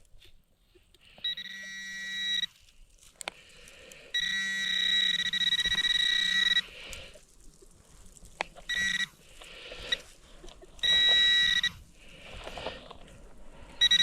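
A metal-detecting pinpointer sounding a steady, high electronic tone in on-off bursts as it is swept through dug soil in search of a small buried target. The first tone lasts about a second, the second about two and a half seconds, then come two brief chirps and a tone of about a second near the end.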